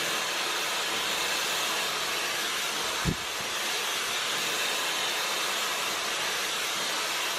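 Dyson Supersonic hair dryer running steadily with its wide-tooth comb attachment, an even airy hiss as it blows through the hair. A brief low thump about three seconds in.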